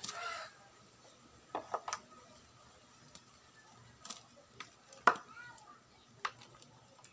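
Scattered light clicks and knocks of speaker wire and its plug being handled and pushed into the jack on a plywood speaker box, the sharpest click about five seconds in.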